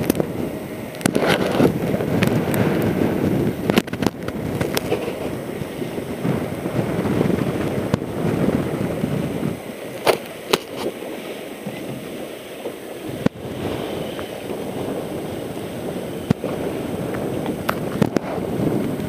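Wind buffeting the camera microphone on a boat out on choppy water, with scattered sharp pops and cracks through the rumble.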